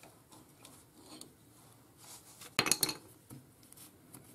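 Small metal pick scraping and ticking against a VW Beetle swing-axle bearing housing and splined axle shaft as a little seal is worked out, with a short rattle of metal clinks a little past halfway.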